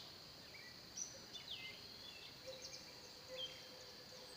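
Faint outdoor ambience: scattered short bird chirps over a steady, high-pitched insect drone.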